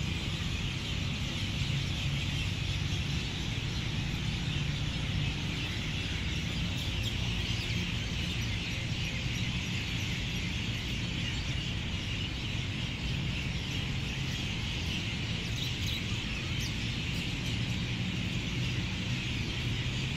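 Many birds chirping at once in a dense, steady chorus, over a steady low background rumble.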